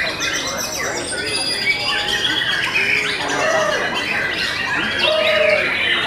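Many young white-rumped shamas (murai batu) singing at once: a dense, unbroken chorus of overlapping whistled phrases, quick trills and chattering notes.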